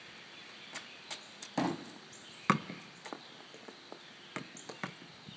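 A basketball bouncing on asphalt, a handful of separate knocks at uneven spacing; the loudest comes about two and a half seconds in.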